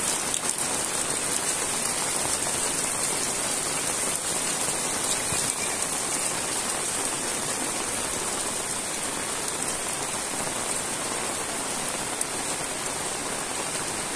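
Heavy rain falling steadily: a dense, even hiss of a downpour on the roofs and waterlogged ground.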